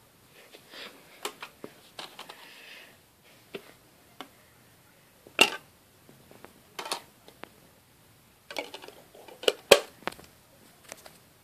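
Scattered clicks, knocks and rustling from a CD and a portable CD player boombox being handled. Two sharp clicks stand out, one about halfway through and one near the end.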